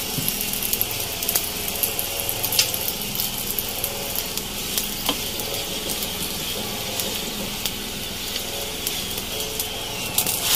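Oil sizzling under an aloo paratha frying on a hot tawa: a steady hiss with an occasional sharp crackle.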